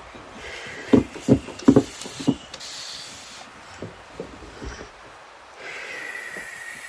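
A quick run of about five dull taps, set against long breathy hisses like slow exhales, one of which starts again near the end.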